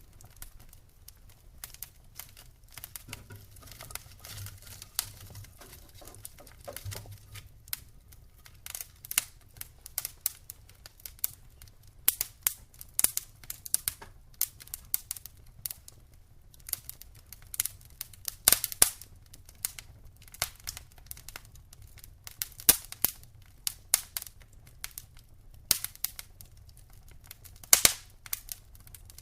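Wood fire burning in a fireplace, crackling with irregular sharp pops and snaps, a few of them much louder than the rest.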